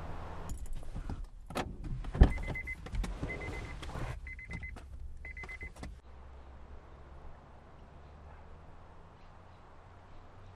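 Car interior sounds: a sharp thump about two seconds in among several clicks and knocks, and a car's high electronic warning chime pulsing in four short bursts. A low rumble under the first half fades out after about six seconds.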